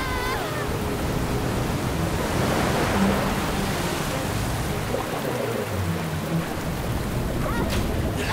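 Stormy sea: waves surging and breaking in a continuous rushing noise.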